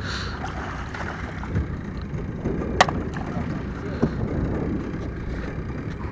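Wind on the microphone and water moving against a small boat's hull, with one sharp knock a little under three seconds in.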